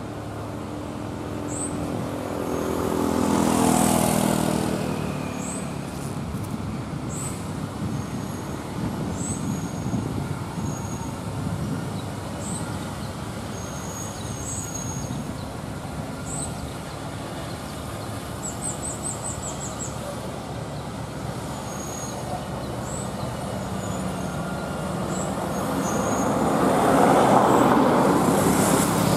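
Road traffic on a steep mountain road. A vehicle's engine passes about four seconds in, its pitch dropping as it goes by. Engine and road noise then continue steadily and swell again near the end as more vehicles come close.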